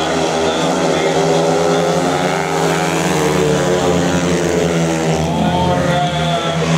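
Several speedway motorcycles racing, their 500 cc single-cylinder methanol engines running hard at full throttle. Several engine notes overlap and rise and fall in pitch as the bikes sweep through the bends.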